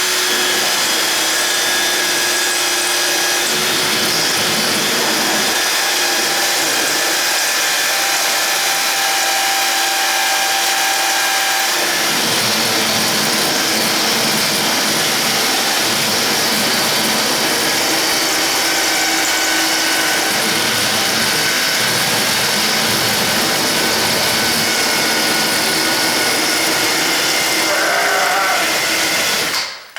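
Dremel rotary tool running on high with a grinding-stone bit, grinding at a door strike plate opening: a steady high whine with a grinding rasp that cuts off suddenly near the end.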